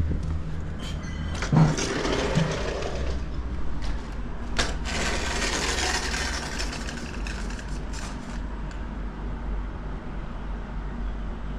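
A sliding screen door and glass patio door being opened: a few knocks and clacks of the frame and latch, then a sharp clack and a rolling, scraping slide along the track that swells and fades. A steady low hum runs underneath.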